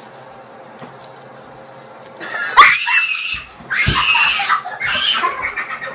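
High-pitched squealing and shrieking from a person, in three loud bursts starting about two seconds in, with a thump in the middle.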